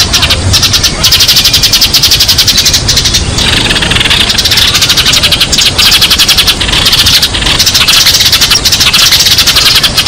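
A flock of Eurasian tree sparrows chirping: a loud, dense, continuous chatter of many short chirps overlapping, a sparrow flock call.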